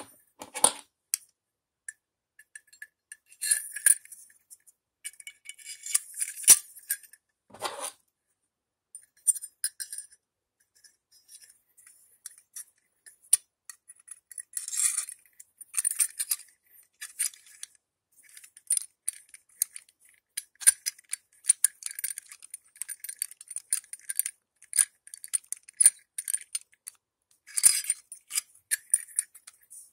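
Small metal pieces clinking and rattling as a hand-forged prayer wheel of copper and nickel-silver plates on a forged steel pin is handled and turned: light, irregular clinks in short clusters, busiest about four, six and fifteen seconds in and near the end.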